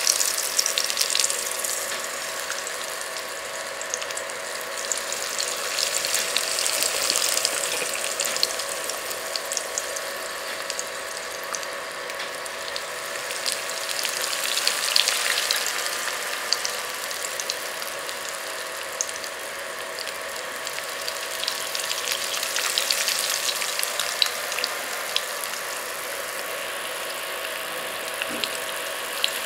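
Eggs and tomato rings frying in oil in a stainless steel wok: a steady sizzle full of rapid, fine crackling pops, over a faint steady hum.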